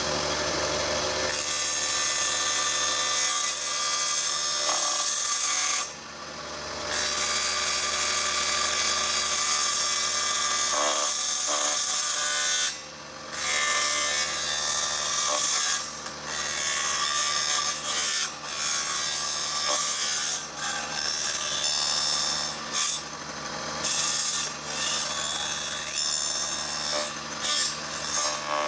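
An electric power tool runs steadily while working wood, its motor hum mixed with the rasp of the wood. The sound drops out briefly several times, most clearly about 6 and 13 seconds in.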